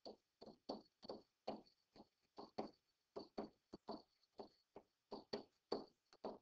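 Faint, quick taps of a stylus on a writing tablet during handwriting, about four short ticks a second at uneven spacing.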